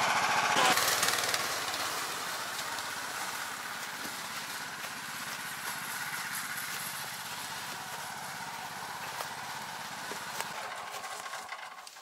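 Rybak motorized snow tow's small petrol engine running under load as it pulls loaded sleds through snow. It is loudest for the first second, then runs steadier and a little quieter, and dies away near the end.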